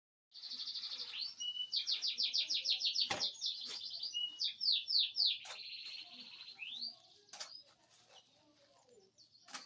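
Domestic canary singing a long song of rapid high trills and repeated chirping notes. It stops about seven seconds in, and a few sharp clicks come through.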